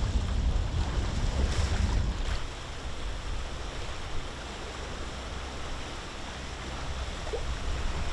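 Wind buffeting the microphone over the wash of sea water around a sailing boat under way; the low wind rumble is heavier for the first couple of seconds, then the sound settles to a quieter, steady rush of wind and water.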